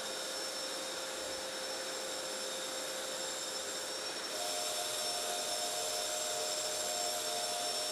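Festool Planex long-reach drywall sander running with its dust extractor on a drywall ceiling: a steady rushing hiss with thin high whines, joined by a lower hum about four seconds in.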